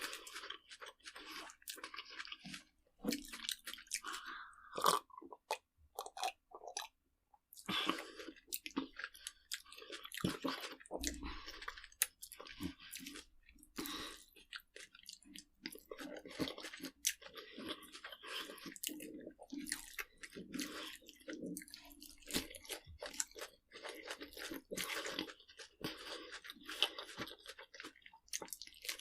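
A person chewing crunchy food close up: dense, irregular crunches and crackles, with a short pause about seven seconds in.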